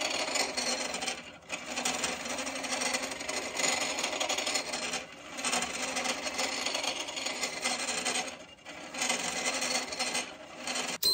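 A bowl gouge shear-scraping the inside wall of a spinning red cedar vase on a wood lathe: a steady scraping hiss of the tool edge on the wood, in long passes broken by brief pauses about every 3 to 4 seconds. A sharp click sounds at the very end.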